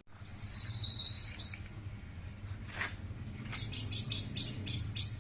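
White-rumped shama (murai batu) calling: a rapid high trill lasting about a second, then after a pause a run of quick repeated high notes, about four or five a second.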